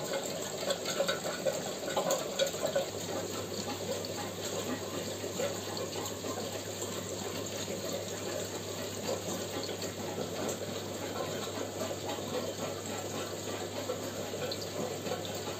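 Aquarium box filters bubbling and trickling water in a steady wash, with a few louder splashy moments in the first few seconds. A steady low hum comes in about three seconds in.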